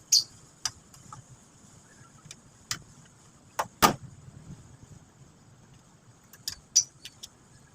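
Scattered metallic clicks and knocks from tools and parts being handled, the loudest knock about four seconds in, over a faint steady high whine.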